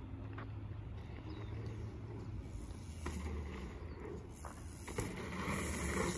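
Mountain bike riding a dirt pump track. Its tyre noise on the packed dirt builds as it comes close near the end, with a light knock about five seconds in, over a steady low rumble.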